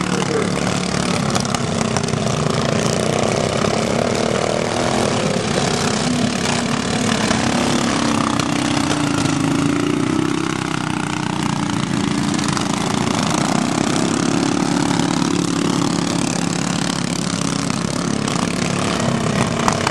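Several racing riding lawn mowers' small engines running at speed over a dirt track, their pitch rising and falling as they accelerate and pass, with a broad rushing noise underneath.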